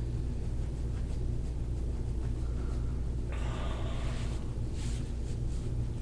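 Steady low hum, with a short breathy noise starting a little over three seconds in and lasting about a second.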